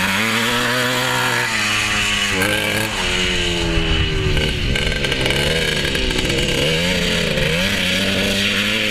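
Yamaha YZ250 two-stroke dirt bike engine running hard as the bike is ridden, its pitch rising and falling over and over with the throttle.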